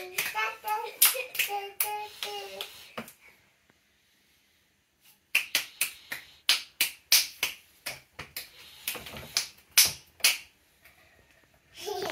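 Children clapping their hands in quick, sharp claps, with a child's singsong voice over the first few seconds. The clapping stops for about two seconds, then picks up again at about three claps a second.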